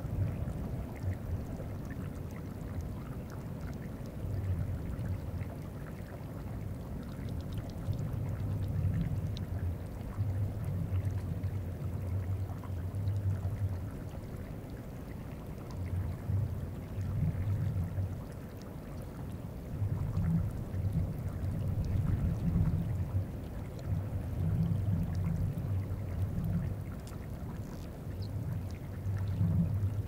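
Deep bass bumping of moving glacier ice, picked up by geophones in the ice sheet, swelling and fading every few seconds over the faint trickle of meltwater on the glacier's surface.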